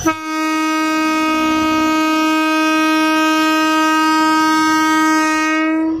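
Horn of the Alishan Forest Railway diesel locomotive DL-48 sounding one long steady blast of almost six seconds as the train pulls away from the station, cutting off sharply.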